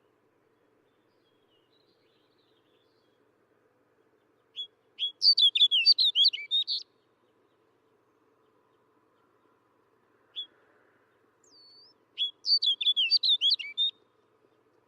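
Snow bunting singing: two short, quick phrases of high warbling notes, one about a third of the way in and one near the end, with a single short call note between them.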